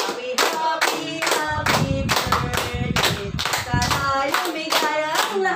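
A group of people clapping in time, about three claps a second, along with voices singing.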